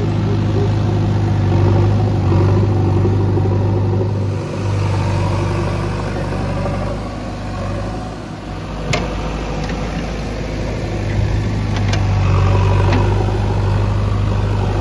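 JCB 3DX backhoe loader's diesel engine running steadily at work, with a few short sharp knocks in the second half as the machine digs.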